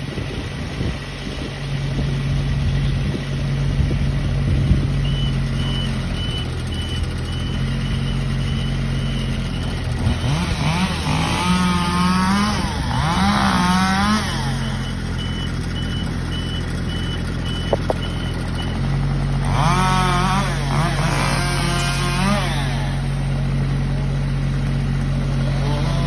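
An aerial lift's engine runs steadily, changing speed a few times. A high alarm beeps about twice a second in two spells. A chainsaw revs up and down in two bursts of a few seconds each, partway through and again later.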